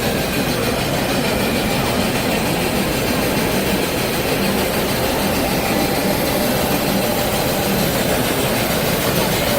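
Steady, even background din of a large convention hall, with no single distinct sound standing out.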